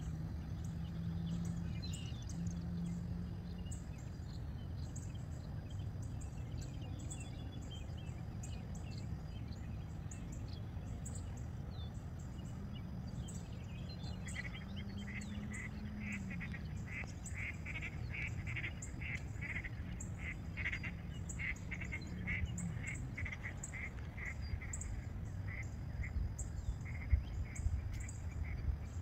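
Outdoor ambience of wind rumbling on the microphone, with birds calling. From about halfway a quick series of repeated high calls comes at a couple a second for several seconds.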